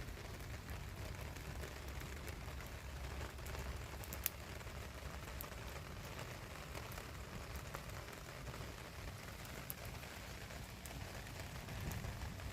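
Small wood fire crackling in a mini tin-plate fire pit, with scattered sharp snaps and one loud pop about four seconds in.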